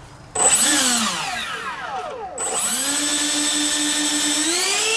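Twin 70 mm electric ducted fans of an RC airliner model being throttled on the ground. There is a sudden burst about a third of a second in that winds down over the next two seconds. The fans then spin up again to a steady high whine, which climbs in pitch near the end as the throttle is raised.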